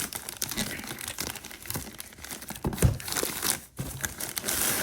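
Shipping packaging being ripped open and crumpled by hand: dense crinkling and tearing, with a thump about three seconds in.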